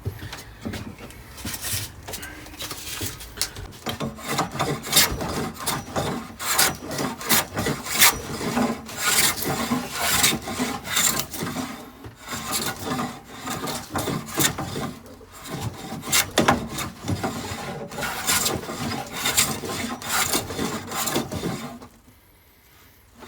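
Hand plane shaving a pine board, one rasping stroke after another, stopping briefly near the end.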